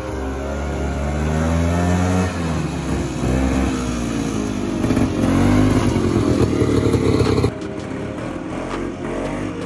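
Ben-Augus Caribou tracked snow vehicle's Kohler engine running and revving as it drives, its pitch rising and falling. About three-quarters of the way through the sound cuts abruptly to a quieter engine running with a clatter.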